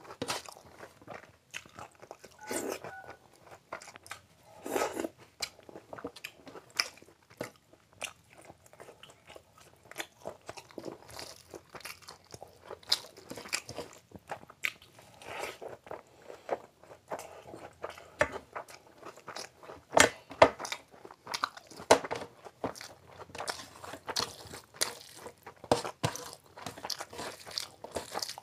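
Close-miked eating by hand: chewing with crunching and irregular wet mouth clicks as fried rice with Manchurian gravy is eaten, along with fingers squishing the rice and gravy together on a steel platter.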